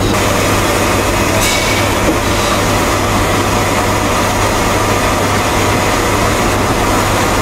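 Steady, loud rumbling noise with a low hum under it. About a second and a half in, a brief brighter scrape as a wire whisk stirs melting white chocolate and cream in a stainless steel saucepan.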